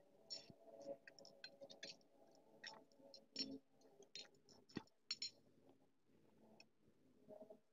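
Near silence: faint room tone with a low murmur and a scatter of small, sharp clicks.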